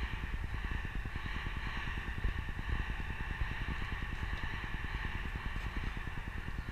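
Steady outdoor ambience dominated by a fluttering low rumble of wind on the microphone, with a constant high hiss above it.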